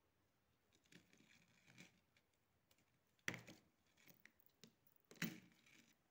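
Faint rustling, then two light knocks about two seconds apart: small craft items handled and set down on a plastic-covered table.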